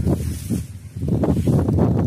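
Wind buffeting the microphone: a gusty low rumble that dips briefly about three-quarters of a second in.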